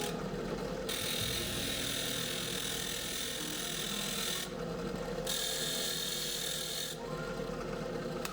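Drill press running with a cutter grinding nail nicks into steel knife blades: a steady motor hum, with a scraping hiss of the cut that comes in two spells of a few seconds each and drops away between them.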